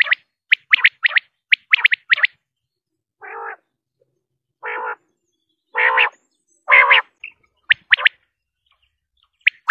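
Common quail calling: quick groups of two or three short, sharp, high notes, then four longer, lower, rougher calls about a second apart that grow louder, then two more short sharp notes.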